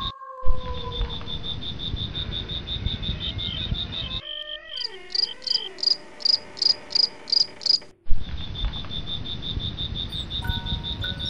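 Steady, rapid insect chirping of the cricket kind, about nine pulses a second. From about four seconds to eight seconds in it gives way to a slower, louder, higher chirping, about three a second, over wavering tones, then the first chirping returns abruptly.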